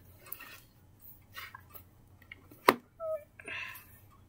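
Mostly quiet, with faint taps of a finger on a tablet touchscreen and one sharp click a little past halfway. A brief soft vocal sound and breath follow the click.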